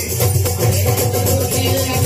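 Live folk song played loud through a PA: a man singing over a steady dholak beat with a fast shaken rattle of percussion on top.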